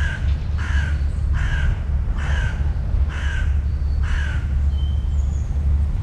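A crow cawing six times in a steady series, about one caw a second, that stops after about four seconds, over a steady low rumble.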